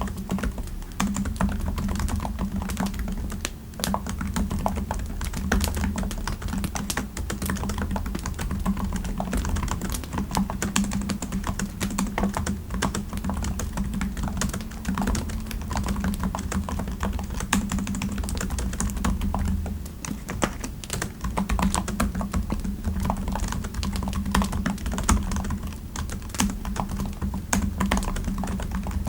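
Steady typing on a computer keyboard, a dense, irregular run of key clicks, over a steady low background hum.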